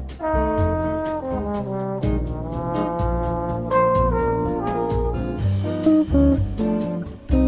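Background jazz music with brass (trombone and trumpet) over bass and a steady drum beat.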